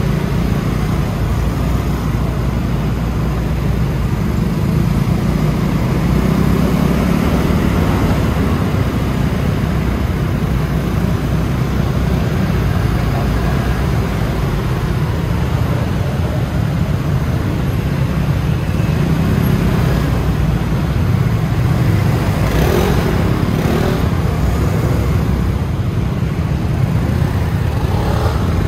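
Steady low rumble of a scooter riding through city traffic, with other vehicles around it; a brief louder passing vehicle sound comes about three-quarters of the way through.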